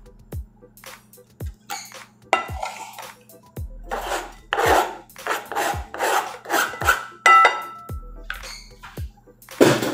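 Chopped herbs scraped off a plastic cutting board into a bowl: a run of rough scraping strokes from about two seconds in. Background music with a steady beat plays throughout.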